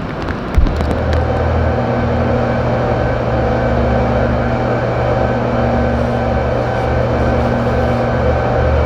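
A steady engine hum with a low drone and a few steady higher tones. It starts suddenly with a thump about half a second in, after scattered raindrop ticks.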